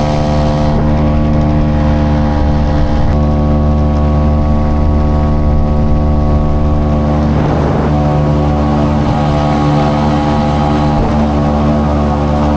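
A 3.3-horsepower outboard motor on a jon boat, running at a steady, even speed while under way. A brief rush of noise comes about seven seconds in.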